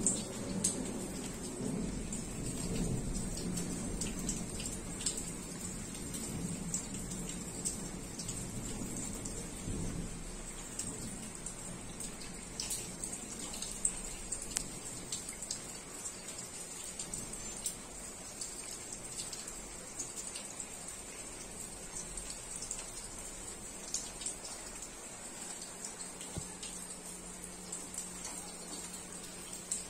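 Rain falling steadily, with many individual drops ticking and splashing. A low rumble of thunder at the start dies away over the first several seconds.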